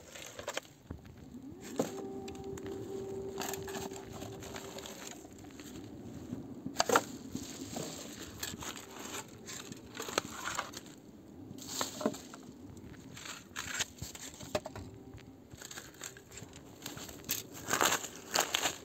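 Plastic bags and foil crinkling and tearing as they are tugged out of the dry forest floor with a litter-picker grabber, with irregular sharp crackles and snaps, the loudest near the end. The plastic is stuck fast in the ground and has to be torn free.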